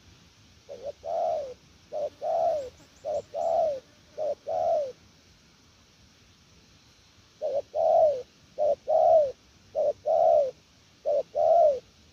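Spotted dove cooing: two bouts of four two-part coos, each a short note followed by a longer note that rises and falls, with a pause of a couple of seconds between the bouts.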